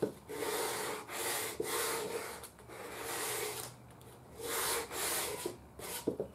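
Sandpaper rubbed by hand over the shellac finish of a wooden radio cabinet, in about seven uneven back-and-forth strokes, roughly one a second. The light sanding roughens the crazed old shellac to break the glaze without taking the finish off.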